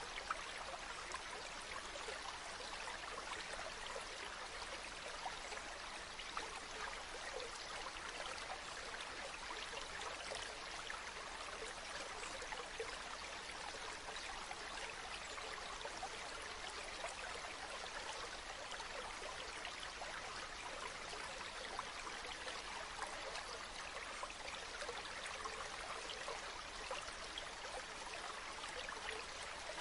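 Stream running over rocks: a steady, even rush of water with small splashes and trickles throughout.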